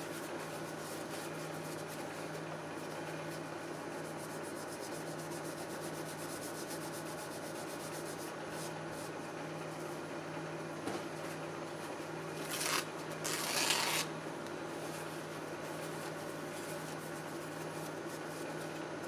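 Paper tissue rubbing, wiping old thermal paste off a CPU heatsink, with two short louder wipes a little past the middle over a steady low hum.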